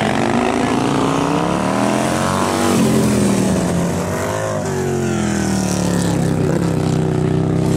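Several heavy bagger motorcycles racing, BMW R18 boxer twins among Harley-Davidson and Indian V-twins, their big twin-cylinder engines revving up and down through the corners. Overlapping engine notes climb for the first couple of seconds, dip, climb again about halfway through, then fall away steadily.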